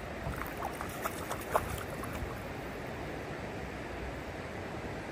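A hooked brown trout splashing at the water's surface on a fly line, a few short splashes in the first two seconds, the loudest about a second and a half in, over steady river water noise.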